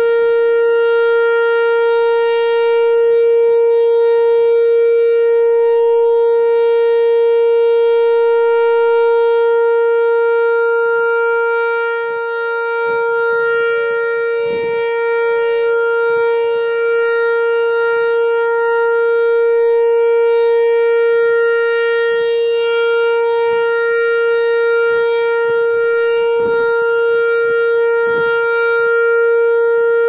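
Whelen 4004 electronic tornado siren sounding its steady alert tone: one loud held pitch with a buzzy, overtone-rich edge. Its loudness swells and dips slightly as the rotating horn array turns.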